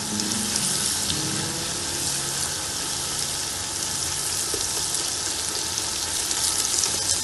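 Onions and corned beef frying in hot oil in a pot: a steady sizzle with fine crackling throughout.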